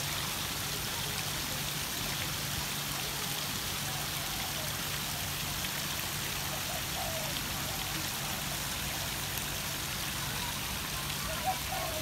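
Water splashing and trickling steadily down an artificial rock cascade into a pond.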